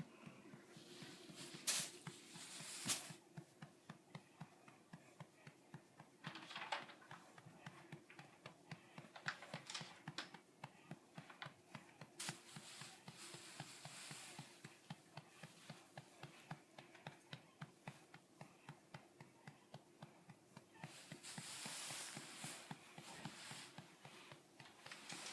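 Faint, steady, rhythmic patting of a hand on a baby's back to bring up a burp, with a few louder knocks and some rustling mixed in.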